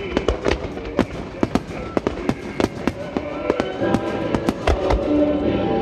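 A rapid volley of firework shell bursts, several sharp bangs a second, with music playing underneath that grows louder near the end.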